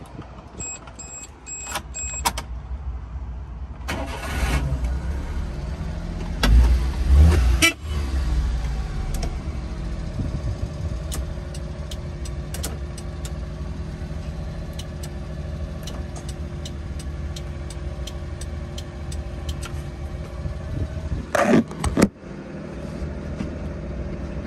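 A few short beeps, then the 1995 Suzuki Carry's 660cc three-cylinder engine starts about four seconds in, revs briefly and settles into a steady idle. There is a brief clatter near the end.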